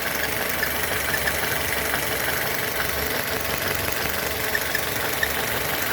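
Citroën C4 2.0 16v engine idling with a faint metallic buzzing, scraping-like noise. The noise comes from a ruptured diaphragm in the valve cover on the intake-manifold side, which lets unmetered air into the engine: the air leak behind fault code P1160.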